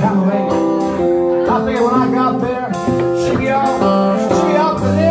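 Live acoustic guitar music, a steady run of changing notes.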